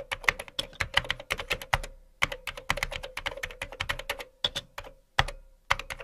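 Typing on a computer keyboard: quick, irregular key clicks, several a second, with brief pauses about two seconds in and again after five seconds.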